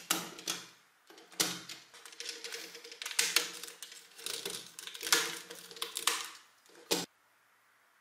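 LEGO Technic plastic beams and pins clicking and rattling as they are handled and pressed together. The clicking stops after one last sharp click about seven seconds in.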